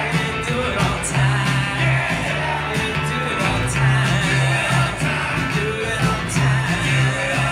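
Live rock band playing: strummed acoustic guitar over a bass guitar line that repeats a few low notes in a steady rhythm, with drums, heard from within the audience.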